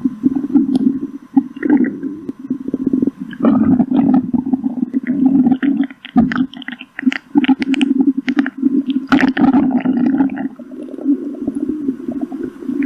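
A human stomach growling: a continuous low rumble that keeps breaking up, with bursts of short gurgles and pops, busiest around the middle and again about nine seconds in.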